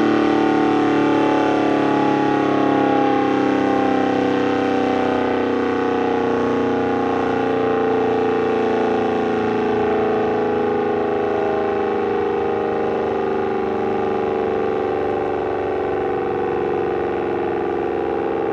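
ACA Banshee 115 outdoor warning siren sounding a steady tone made of several pitches together, with the pitch sliding slowly and evenly downward.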